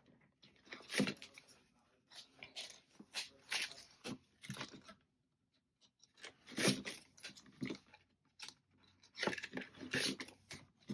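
Rustling and crinkling of a cash-stuffing savings challenge binder and paper bills being handled, in irregular clusters with a short lull about five seconds in.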